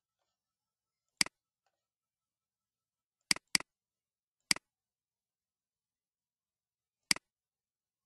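Computer mouse button clicks: five sharp clicks spread out, two of them close together like a double-click, with silence between.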